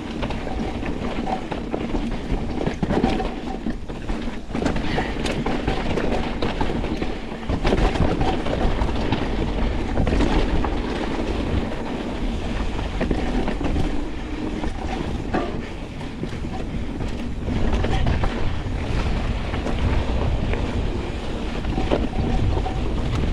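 Pivot Switchblade full-suspension mountain bike descending a rough trail at speed: tyres rumbling over the dirt, with a steady run of knocks and rattles from the bike, and wind buffeting the microphone.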